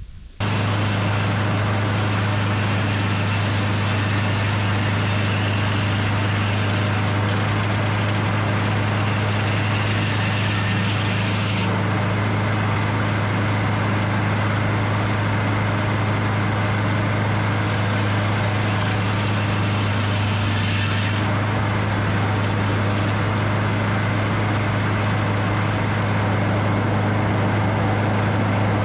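Large engine running steadily at one even pitch, cutting in suddenly about half a second in, with a hiss above it that grows and fades a few times.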